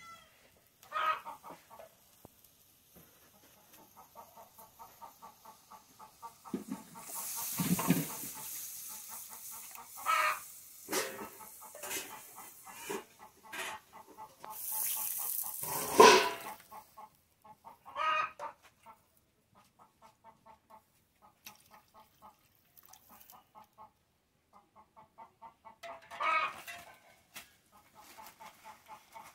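Domestic chickens clucking: runs of rapid, evenly spaced clucks, broken by several louder calls, the loudest about halfway through. Two short bursts of hissing noise come in between.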